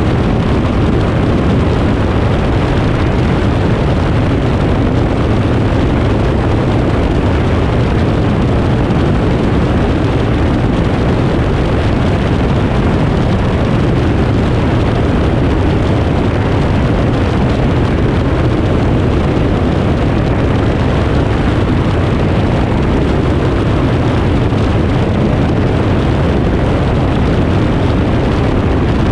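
Aeroprakt A22 light aircraft in steady cruise: its engine and propeller drone evenly, mixed with rushing airflow over an outside-mounted camera.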